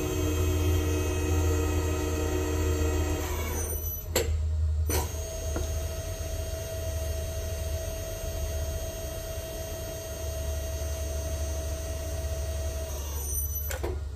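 Nargesa CC90 tube bender running as it draws a tube around its bending die: a steady low hum with a steady whine over it, broken by sharp clicks about four and five seconds in and again just before the end.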